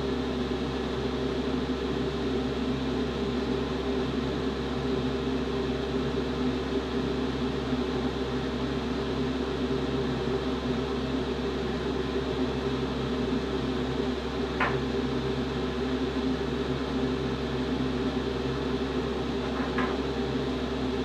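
A small electric motor running with a steady, even hum made of several low tones. Two faint light taps sound, one about two-thirds through and one near the end.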